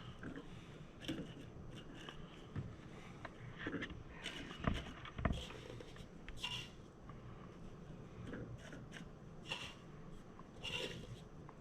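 Dry oak shavings being handled and packed into a wooden cocktail smoker: quiet rustling and scraping with a few soft knocks, the firmest about halfway through.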